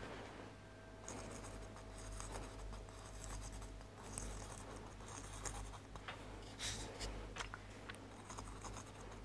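Faint, uneven scratching and rubbing as the nozzle of a rubber slip-trailing bulb is drawn over an unfired clay pot, tracing slip lines, with small clicks from handling the pot.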